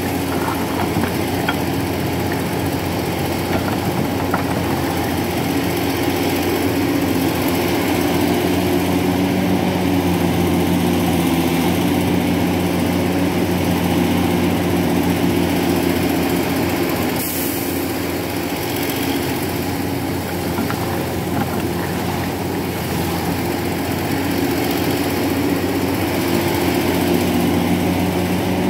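Scania 164L 580's V8 diesel engine idling steadily, the truck standing still with its trailer loaded with iron ore. A single short click sounds partway through.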